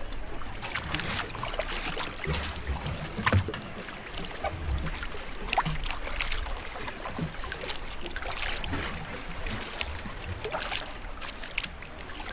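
Kayak paddling on open water: paddle blades dipping and splashing at irregular intervals, with water dripping and a constant wash of water, and low rumbling underneath.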